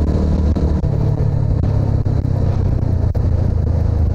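TVS Apache RTR 200's single-cylinder engine running as the motorcycle rides along. Its note steps up a little about a second in.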